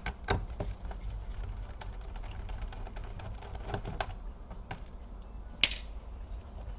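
Scattered light clicks and taps of a small screwdriver and fingers working on the plastic underside of an HP Compaq 6830S laptop while screws are removed, with one sharper click about five and a half seconds in.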